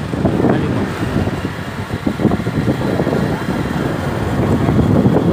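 Wind buffeting the microphone of a phone held by a passenger on a moving motorcycle: a loud, gusty rumble with motorcycle and road noise underneath.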